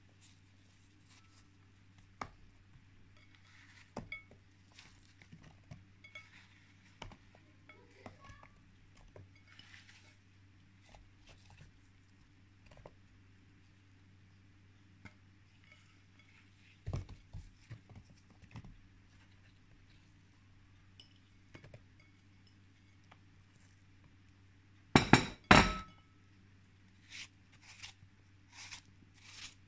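Scattered light clinks and taps of dishes and kitchen utensils, with a short louder clatter near the end, over a steady low hum.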